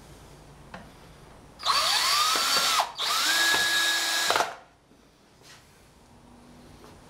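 A DeWalt cordless drill driving screws through metal strong-tie brackets into 2x4 framing. There are two short runs, about a second each with a brief gap between: the motor whines up in pitch, and the first run slows near its end as the screw seats.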